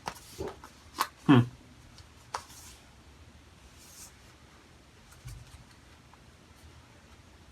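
Cardboard packaging of an Apple Watch band box being handled and pulled open: a few sharp clicks and light rubbing in the first few seconds, then faint handling.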